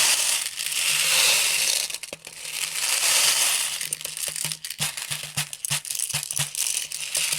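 Plastic 0.2 g airsoft BBs pouring and rattling through a plastic funnel loader into a magazine: a rushing patter in two long swells, then a run of separate clicks and ticks as the last BBs drop.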